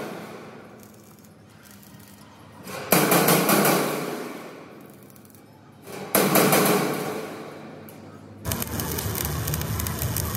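A hammer strikes the welded steel fuel tank twice, about three seconds apart, and each blow rings through the hollow steel box, dying away over a couple of seconds. About eight and a half seconds in, the steady crackle and hiss of arc welding takes over.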